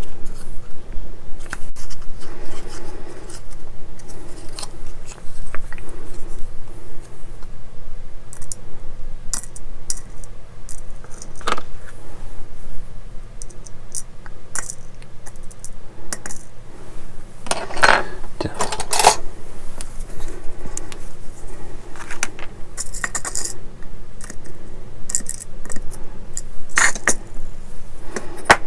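Scattered small clicks, taps and scrapes of a small screwdriver and a tiny metal screw being handled against plastic model parts and the desk, with a louder run of clicks a little past halfway. A steady low hum lies underneath.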